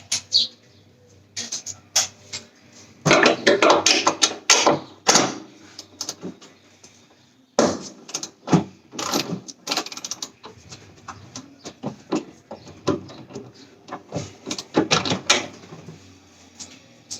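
Irregular clicking and clattering of tools and metal parts being worked on a car, in several dense spells of quick clicks with quieter gaps between.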